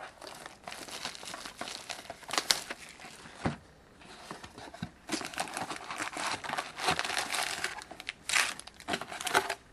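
Plastic wrapping on a sealed trading card box crinkling and tearing as the box is unwrapped and opened by hand. The crinkling comes in two long stretches with a brief lull about halfway, and sharp tears stand out in both.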